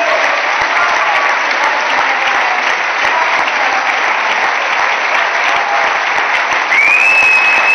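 Large audience applauding steadily in a conference hall. It swells about seven seconds in, when a high steady tone sounds over it.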